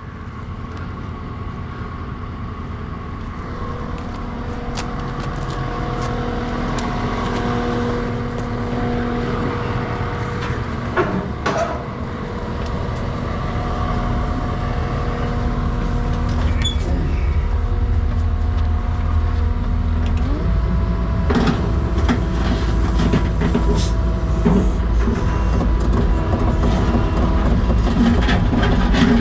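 Skid steer's engine running with a steady whine, growing louder and stepping up in pitch about twenty seconds in as it works, with scattered metallic clanks.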